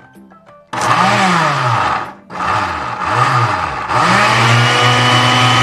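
Oster countertop blender puréeing cilantro with water and olive oil. It starts about a second in and cuts out briefly about two seconds in, its motor pitch rising and falling as it works through the leaves. Near the end it settles into a steady run at high speed.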